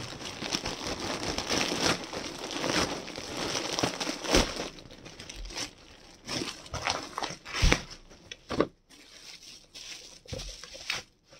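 Packaging crinkling and rustling as a parcel is unwrapped by hand. It is dense for the first half, then thins to scattered crackles and a few sharp knocks.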